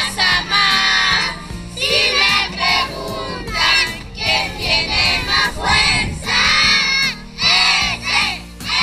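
A group of young children chanting and shouting loudly in unison, in rhythmic bursts about once a second.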